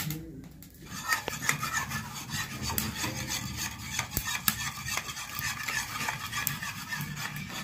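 A spoon beating eggs in a small steel bowl: fast, continuous metal-on-metal scraping and clinking, starting about a second in.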